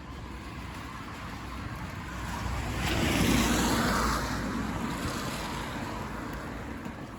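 A car passes on a wet road: the hiss of its tyres on water swells to a peak about three seconds in, then fades away, over a steady background hiss.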